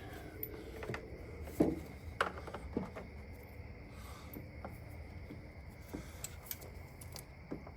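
A few scattered light clicks and taps of hand tools and bolts being handled while refitting an engine's intake manifold, over a faint steady hum.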